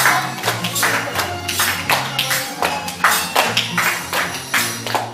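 Instrumental intro to a Russian Gypsy romance: fast strummed guitar chords with sharp, rhythmic accents over a stepping bass line.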